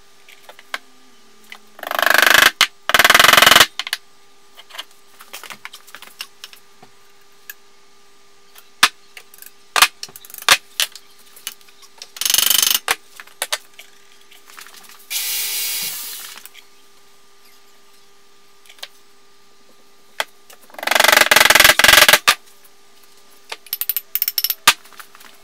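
Hand-tool work on a double bit axe and its wooden handle: several short bursts of harsh scraping noise, scattered knocks and clicks of tools being handled, and a run of light hammer taps on the axe head near the end, over a faint steady hum.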